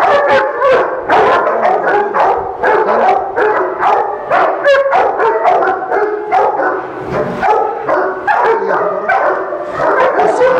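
Dogs barking rapidly and without let-up, bark after bark overlapping, several a second.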